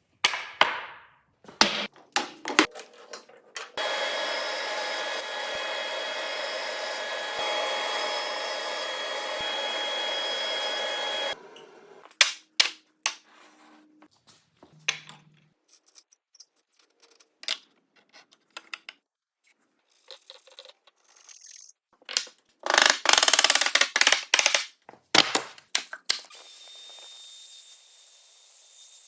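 Woodworking shop sounds. A power tool runs steadily for about seven seconds, then there are scattered knocks and clicks, and a loud burst of tool noise about three seconds long near the end, followed by a faint steady hum.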